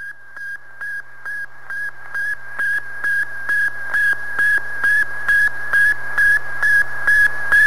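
Shortwave recording of Sputnik 1's radio signal on 20 MHz: a steady whistling tone beeping about two and a half times a second over hiss, growing gradually louder.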